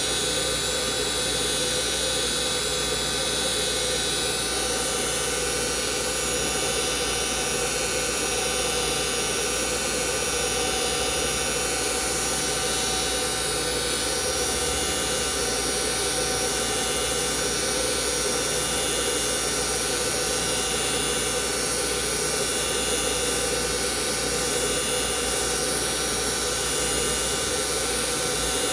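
Heald 273A universal internal grinder running: a steady high-pitched whine over a machine hum, unchanging throughout.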